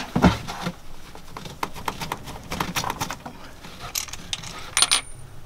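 Scattered light clicks and clinks of small metal parts and tools being handled, with a denser run of sharper clinks near the end.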